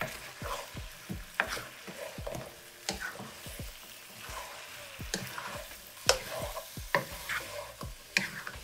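A spatula scraping and tapping against a nonstick skillet in irregular strokes, turning fried pieces through thick sauce that sizzles underneath.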